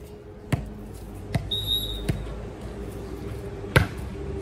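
A volleyball being struck four times in quick play, each a sharp slap, with the last and loudest hit near the end.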